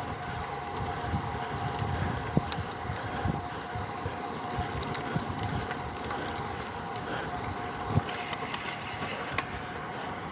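Wind rushing over the microphone during a road-bike ride, a steady noisy rush with a constant hum and scattered small clicks and knocks.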